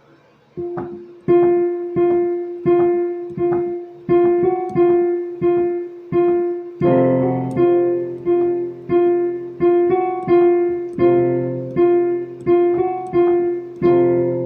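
A piano played at a slow, even pulse: one note struck over and over with a simple line of higher notes above it, then low chords joining in about seven seconds in.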